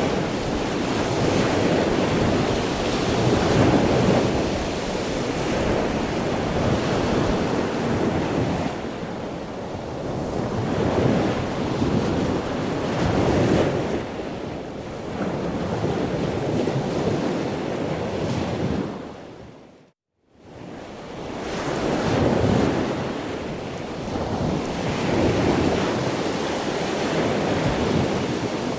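Ocean waves breaking and washing, swelling and easing every few seconds. About two-thirds of the way through the sound fades out to a moment of silence and fades back in.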